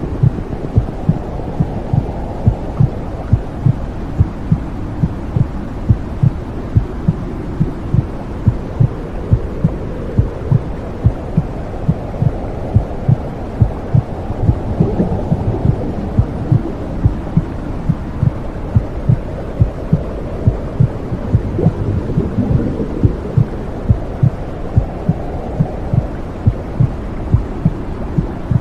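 Womb sound: a mother's heartbeat thumping steadily, a little faster than once a second, over a low, muffled whooshing noise that slowly swells and fades.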